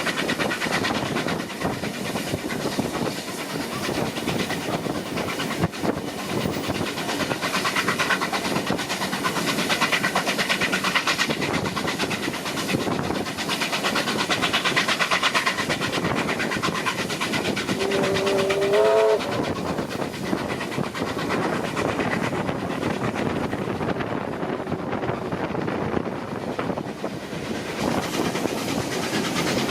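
Steam-hauled train running steadily, a continuous rhythmic clatter and rush of noise. A short whistle note, rising slightly, sounds about two-thirds of the way in.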